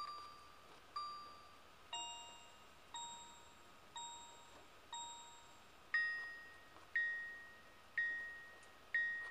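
Background music of slow bell-like chime notes, one struck note a second, each ringing out and fading. The notes step to a new pitch every few strikes, jumping higher about six seconds in.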